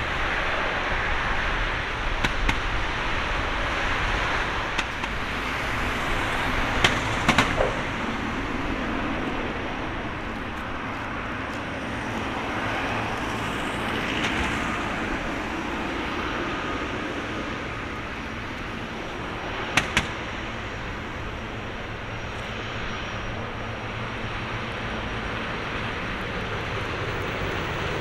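Boeing 777-300ER's GE90 turbofan engines running at taxi power as the airliner rolls along the taxiway: a steady rushing jet noise. A few sharp clicks stand out, around a quarter of the way through and twice about two-thirds in.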